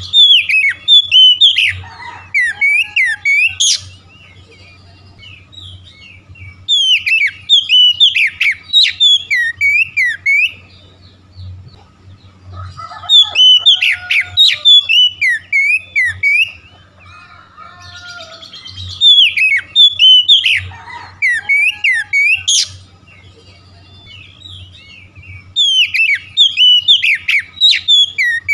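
Oriental magpie-robin (kacer) singing: five loud bursts of rapid, sliding whistled and chattering notes, each three to four seconds long, about six seconds apart.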